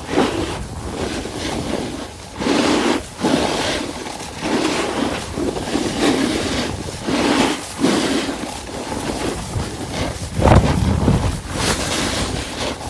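Wind buffeting the microphone over the hiss and scrape of a snowboard edge on icy snow. The noise swells and fades about once a second, with a stronger gust about ten seconds in.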